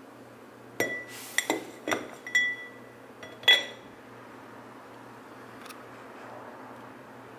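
A clear cup clinking and knocking against a wall and baseboard as it is brought down to trap a spider. About six sharp clinks, each with a short ring, come in the first half, and the last one is the loudest.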